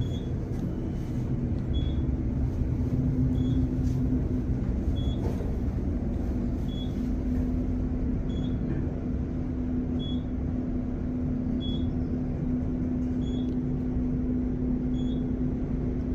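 Elevator car descending fast: a steady low rumble with a constant hum. A short high beep repeats about every second and a half.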